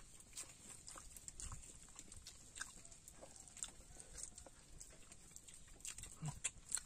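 Faint, irregular crinkling and clicking of a thin plastic bag as fingers pull apart a charcoal-grilled fish, with a short low voice sound near the end.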